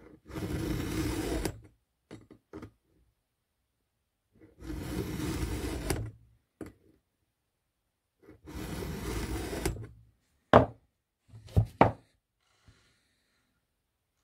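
A 3/16-inch round file in a file-guide holder is pushed across a chainsaw chain cutter in three long rasping strokes, a few seconds apart, each ending in a click. A few sharp knocks follow near the end.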